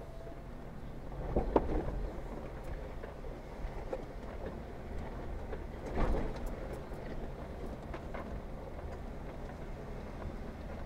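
Jeep Wrangler Rubicon crawling slowly over a rocky trail: a steady low engine drone with rattles and small knocks, and two louder clunks, one about a second and a half in and one about six seconds in.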